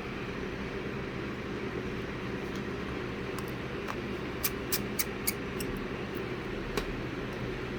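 Steady background hum with a quick run of four small, sharp clicks about halfway through and a single click near the end: small tools and parts tapping against an opened iPhone as it is being closed up.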